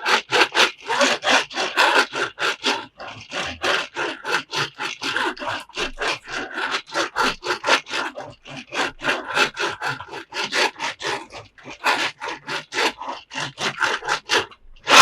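Rapid, repeated scraping strokes, several a second, with a brief pause about three seconds in.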